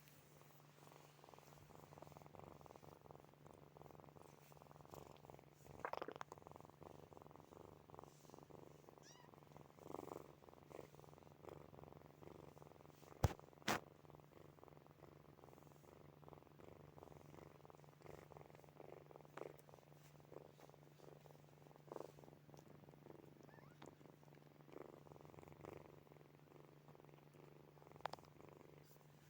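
Sleeping kittens purring faintly and steadily in a fine, rapid pulse, swelling a little now and then. Two sharp clicks come close together about halfway through.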